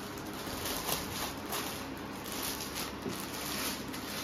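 Clear plastic packaging bag crinkling and rustling in irregular crackles as a folded cloth suit is slid out of it.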